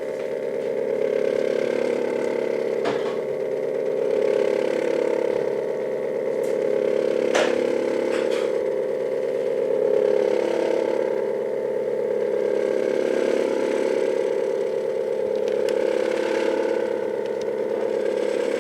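Stepper motor driving an HO-scale model railway turntable, a steady hum with a few sharp clicks along the way.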